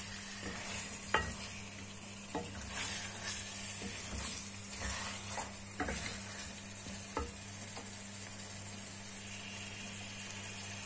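Chicken pieces and potato cubes frying in oil in a karahi with a faint, steady sizzle, stirred with a spatula that scrapes and knocks against the pan about six times.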